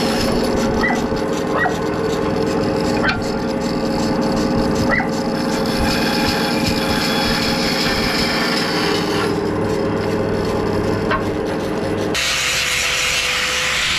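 Large band saw running and cutting a strip of hardwood: a steady hum from the motor and wheels, with the blade hissing through the wood and a few faint short squeaks. About twelve seconds in, the sound cuts abruptly to a different, hissier steady noise.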